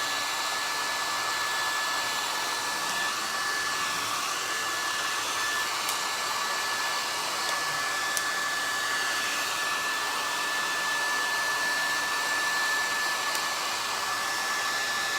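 Handheld hot-air blower running at a steady speed, with a high, even whine over a rushing hiss, drying freshly applied paint on a plaster piece.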